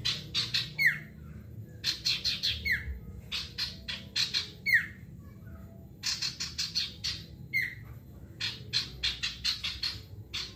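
Male sirtu songbird singing in rapid-fire bursts: about five phrases of quick repeated sharp notes, each ending in a falling slur, with short pauses between them. A steady low hum sits underneath.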